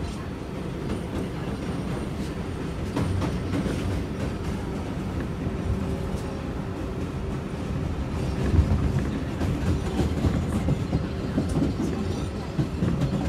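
Riding inside a moving 7 line subway train on elevated track: a steady rumble of wheels on rail with scattered clicks over rail joints, and a louder jolt about eight and a half seconds in.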